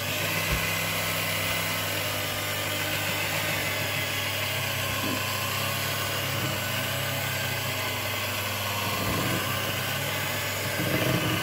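Bifinett electric hand mixer switching on and running at a steady speed, its beaters whisking cake batter in a glass bowl, mixing in the baking powder.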